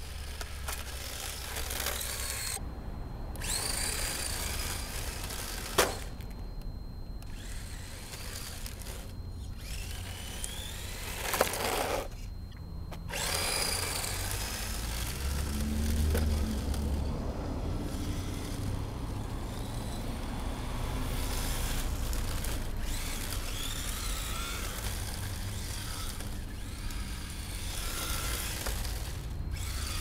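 The electric motor of a Tamiya TT-01D radio-controlled drift car whines, rising and falling in pitch as the throttle is worked, with short breaks. Two sharp clicks stand out, about six seconds in and again after eleven seconds.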